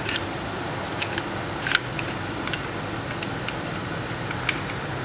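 Light clicks and rattles of a Smith & Wesson M&P Shield 9 mm pistol's polymer frame and steel slide being handled and fitted together during reassembly, the sharpest click about 1.7 s in and another near the end. A steady fan-like hum runs underneath.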